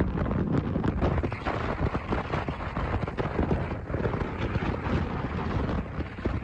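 Heavy wind buffeting on the microphone of a camera carried on an RKS Newlight 125 Pro motor scooter riding at highway speed, a dense rumbling rush that never lets up, with road noise underneath.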